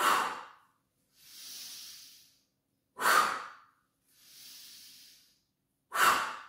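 A woman's rhythmic yoga breathing: three sharp, forceful exhales through the mouth about three seconds apart, each paced to a downward pump of the arms, with a slower, softer inhale between them.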